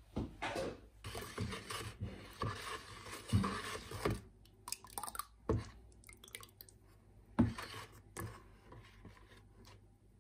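White clay slip being stirred in a plastic bucket with a ladle and then worked by hand: irregular sloshing and scraping, with several sharp knocks of the ladle against the bucket.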